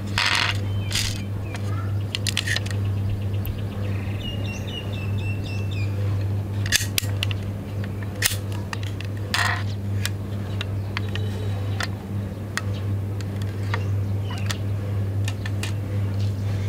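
Clicks and clacks of a die-cast toy ambulance being handled, its small hinged doors snapped open and shut, over a steady low hum. A faint wavering high tone is heard about four seconds in.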